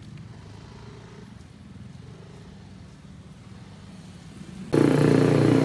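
Motor vehicle engine running at idle: a faint steady low hum, then suddenly much louder engine noise near the end.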